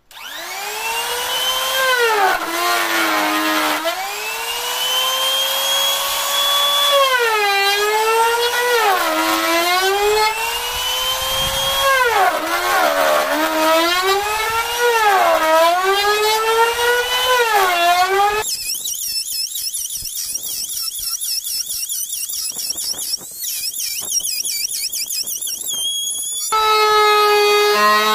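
Modern electric trim router spinning up and cutting a profile into a wooden strip: its high motor whine dips in pitch and recovers again and again as the bit bites into the wood. About two-thirds of the way through the tone turns thinner and higher for several seconds, then settles into a steadier whine near the end.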